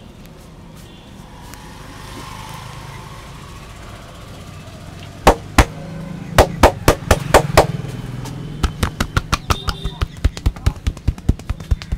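Sharp hand slaps and claps on the head during an Indian head massage. A few scattered strikes come about five seconds in, then a fast, even run of about four a second.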